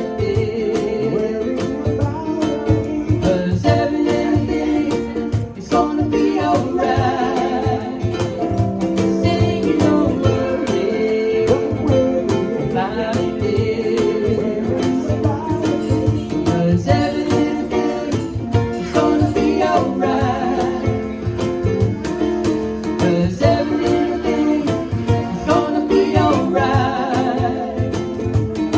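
Live band playing a reggae song with singing and plucked guitar over a steady beat.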